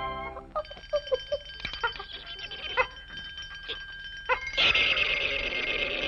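Cartoon sound effects: a steady high bell-like ringing sets in just after the music stops, with short squeaky chattering calls over it and a hissing rush about four seconds in.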